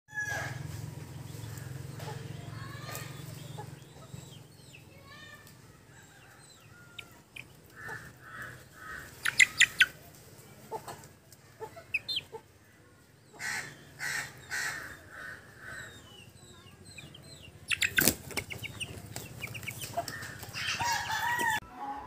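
Chickens clucking, with runs of three to five short clucks about half a second apart, broken by sharp rustling bursts about nine and eighteen seconds in.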